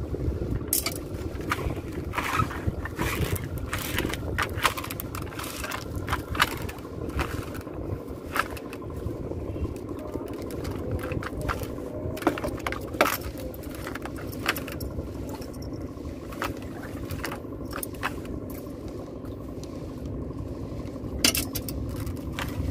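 A small boat's engine running steadily, with irregular sharp clicks and knocks over it.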